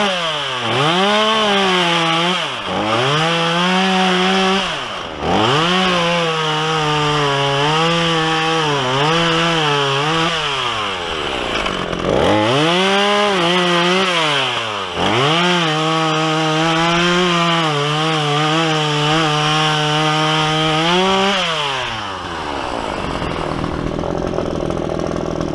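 Craftsman chainsaw cutting hardwood sawmill cutoffs. It revs up and drops back several times and holds a steady pitch through the longer cuts. Near the end the engine note dies away.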